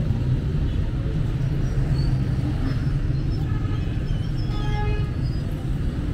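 City street ambience: steady low rumble of road traffic beside a busy sidewalk, with a short pitched sound about four and a half seconds in.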